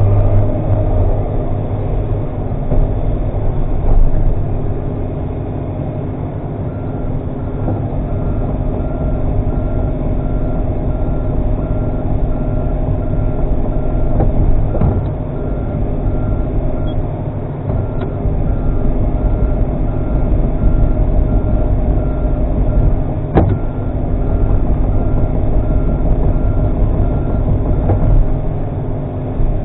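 Komatsu PC300 excavator's diesel engine running steadily under load, with an electronic alarm beeping about twice a second from about seven seconds in, the machine's travel alarm as the tracks move. A single sharp knock near the end.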